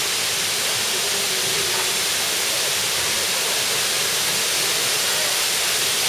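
Minoo Falls, a tall waterfall, pouring steadily: an even, unbroken hiss of falling water.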